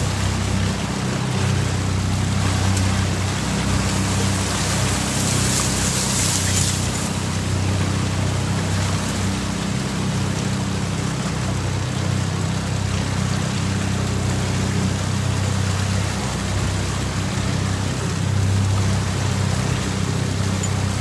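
A 25 hp outboard motor on an aluminium jon boat running steadily at low speed, a constant low hum that neither rises nor falls. For the first seven seconds a higher swishing hiss of reed stalks brushing past the boat lies over it.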